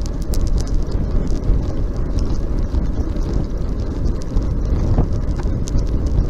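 Wind buffeting the microphone of a bike-mounted camera while riding a road bike at speed, a steady low rumble, with tyre noise and scattered light clicks.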